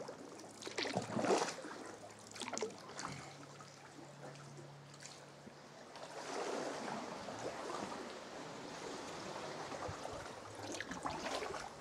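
Sea kayak paddling: water splashing and trickling off the paddle blades. There are a few small splashes in the first few seconds, then a steadier sloshing of water against the rock from about halfway through.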